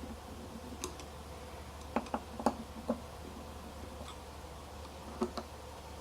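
Scattered sharp clicks and taps of tools and screws while an RV side camera is being screwed onto its mount: one early click, a quick run of four about two to three seconds in, and two more near the end, over a steady low hum.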